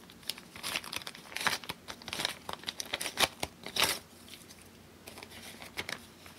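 A paper envelope being torn open by hand: a run of irregular ripping and crinkling noises for about four seconds, then quieter rustling of paper as the contents are handled.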